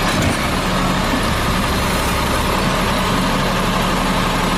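Automated side-loading garbage truck running steadily while its hydraulic arm lifts a wheeled trash cart.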